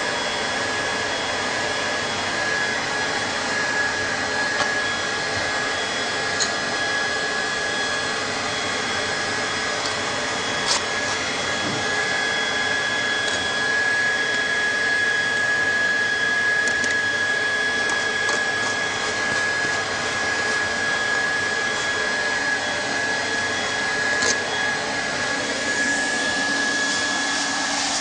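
Hot-air plastic welding gun's blower running steadily: a rushing airflow with a steady high whine and a few faint clicks.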